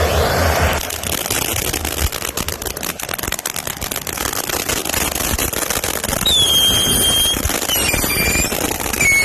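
Safe-and-sane ground fountain fireworks: a rushing hiss that cuts off under a second in, then dense crackling, then three shrill whistles of about a second each, the first about six seconds in, each dipping slightly in pitch.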